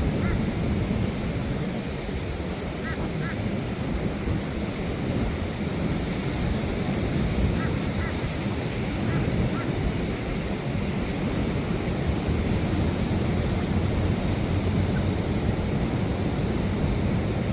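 Ocean surf breaking in a steady, continuous rush, heaviest in the low end, with wind buffeting the microphone.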